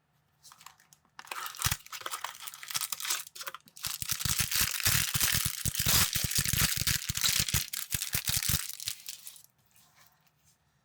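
Plastic packaging being torn open and crinkled, a dense crackle that stops suddenly near the end, with a run of quick knocks under it from about four seconds in.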